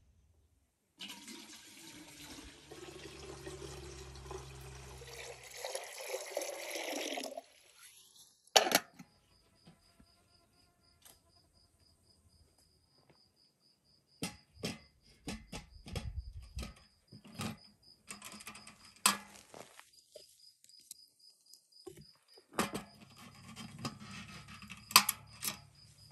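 Liquid poured steadily into a vessel for about six seconds, growing louder before it stops abruptly. Then come scattered sharp knocks and clicks, with a fine, even pulsing chirp from a cricket.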